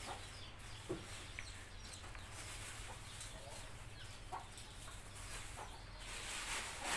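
Chickens clucking now and then, faint and sparse.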